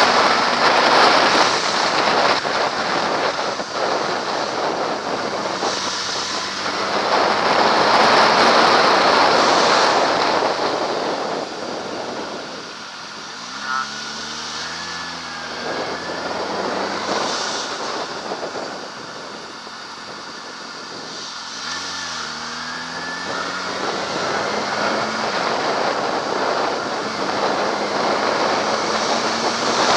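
Kawasaki ZX-6R inline-four sport bike ridden through freeway traffic, heard from a helmet camera: a loud rush of wind on the microphone at speed. It eases off midway, and the engine is heard revving up twice before the wind builds again.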